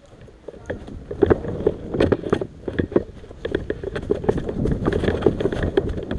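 Irregular knocks and rustling close to the microphone, like gear and clothing moving, starting about a second in.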